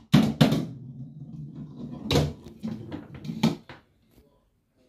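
A Magic 8 Ball knocking and rolling across a wooden floor, with a few loud knocks, coming to rest about four seconds in.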